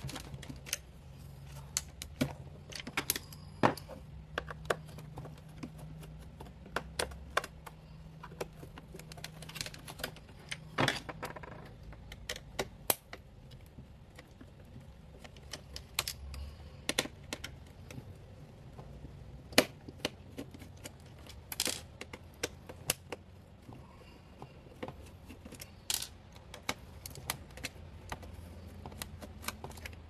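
Irregular small clicks and ticks of hands and a tool working screws loose from the ELCB circuit board inside a plastic water-heater casing, a few clicks louder than the rest, over a faint low steady hum.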